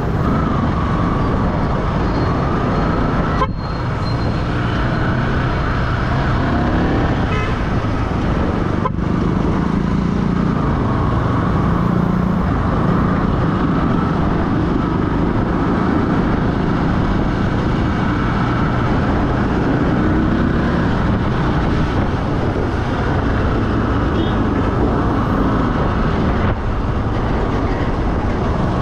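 Steady engine and road noise of a vehicle travelling along a road in traffic.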